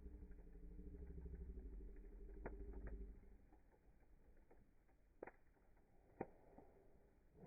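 Faint wood fire: a low, pulsing rumble of flame for the first three seconds, then a few sharp crackling pops from the burning wood.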